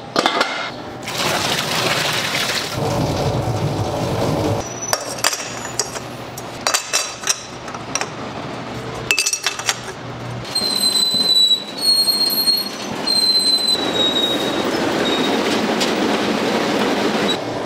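Kitchen work sounds: clinks and knocks of utensils and dishes. About ten seconds in comes a run of short high tones.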